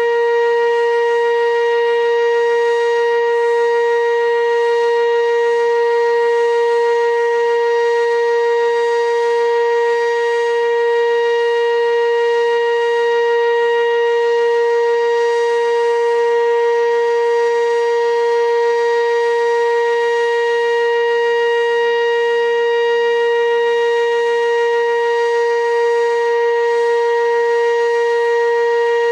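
Sentry 15V2T outdoor warning siren sounding a loud, steady wail, its pitch held level with no rise or fall.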